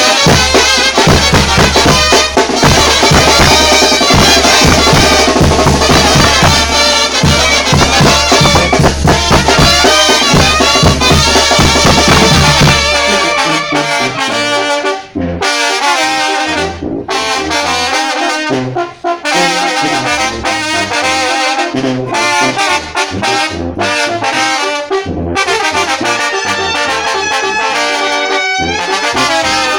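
Mexican banda brass band playing, with trumpets and trombones. Near the middle the deep bass drops out and the playing turns lighter, with a few short breaks.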